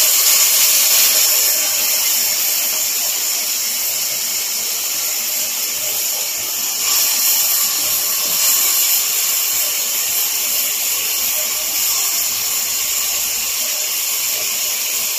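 Tomato sauce sizzling in hot butter on browned onions in a metal pan: a loud, steady frying hiss that eases slightly toward the end.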